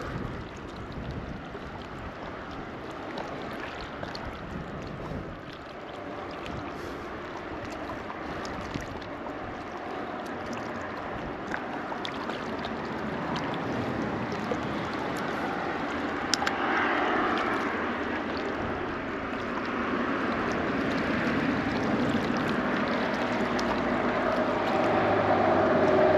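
Steady wind on the microphone with small waves lapping against shoreline rocks, growing gradually louder toward the end.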